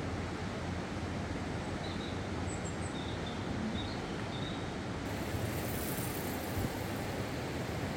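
Steady rushing outdoor ambience with no voices, a low hum fading out about a second in and a few faint high chirps near the middle. At about five seconds it cuts abruptly to a brighter, hissier rush.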